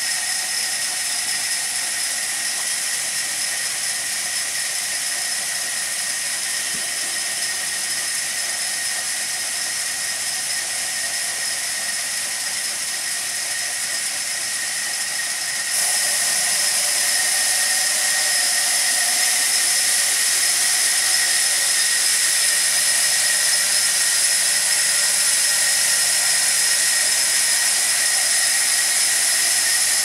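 Sawmill band saw machine running steadily, a continuous high whine over hiss, becoming louder a little past halfway.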